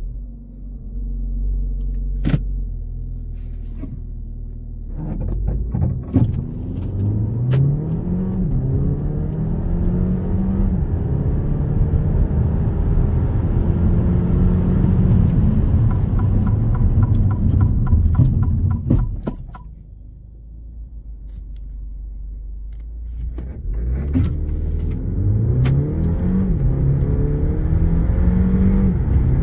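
The Alfa Romeo Tonale Speciale's 1.3-litre turbo four-cylinder running at a low rumble, then accelerating hard from about five seconds in. Its pitch climbs and drops back at each upshift through several gears until it eases off around twenty seconds. A second hard acceleration with the same stepped rises in pitch starts near the end.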